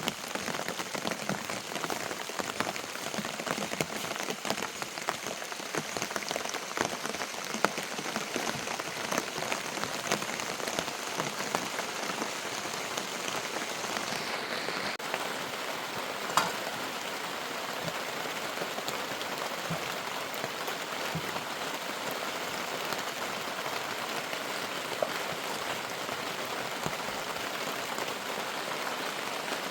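Steady rain falling, a dense patter of many small drop ticks, with one sharper tick about halfway through.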